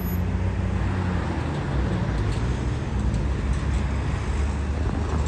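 Steady motor-vehicle engine and road noise, a low hum under an even rush.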